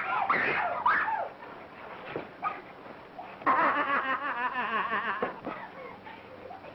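Women shrieking and crying out wildly as they grapple in a fight, with high cries in the first second and a long, wavering, cackling shriek from about three and a half to five seconds in.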